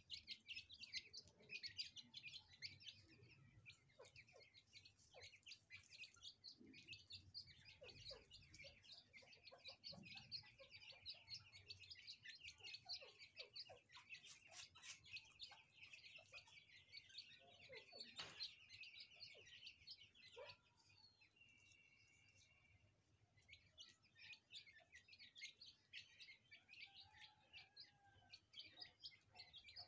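A brood of francolin (teetar) chicks peeping, faint, many short high chirps overlapping in a steady stream, with a brief lull about two-thirds of the way through.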